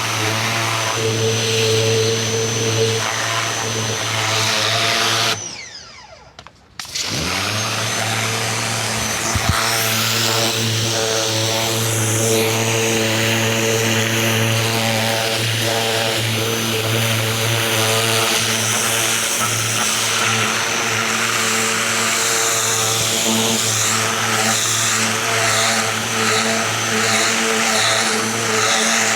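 Ryobi 2000 PSI electric pressure washer running with its motor humming and the water jet hissing against the fence. About five seconds in the spray stops and the motor cuts out, as when the trigger is let go. It starts again a second and a half later and runs steadily.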